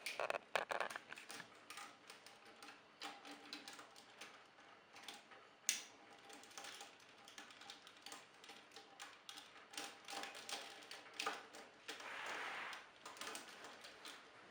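Hard plastic parts of a Titan Megazord combining toy clicking, tapping and rubbing as they are handled and pressed into place, with irregular clicks throughout and one sharper snap about six seconds in.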